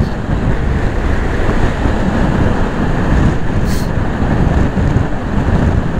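Kawasaki Versys-X 300 parallel-twin motorcycle ridden at a steady highway speed, its engine under heavy wind noise on the microphone.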